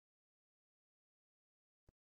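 Near silence, with one faint click near the end at the splice between two clips.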